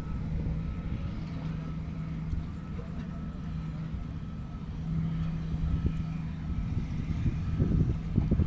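Steady low engine hum with a constant drone, and wind buffeting the microphone in gusts near the end.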